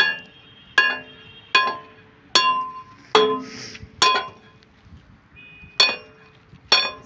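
A long steel bar rammed by hand against an excavator bucket's linkage pin, each blow a sharp metal clank that rings on briefly: about eight blows, roughly one every 0.8 s, with a pause of nearly two seconds before the last two. The pin is being knocked out to take the bucket off.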